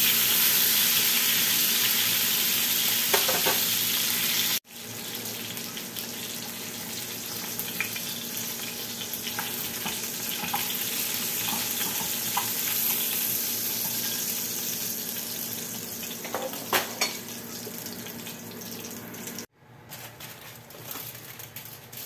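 Salmon fillets sizzling as they fry in oil in a nonstick pan, with a few light clicks of metal tongs against the pan as the pieces are turned and lifted out. The sizzle is loud for the first few seconds, drops abruptly to a softer level, and stops suddenly near the end.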